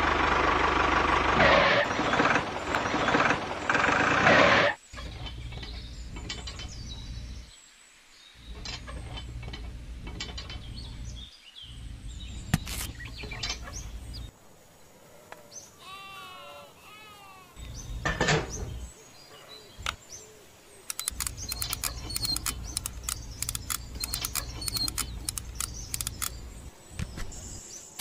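Clicks and taps of small metal and plastic parts as a toy cultivator plough is fitted by hand to a mini tractor's spring-loaded hitch, over a low steady hum. A loud, dense sound fills the first five seconds, a short run of bird-like chirps comes about halfway through, and the clicks come thick and fast in the last seven seconds.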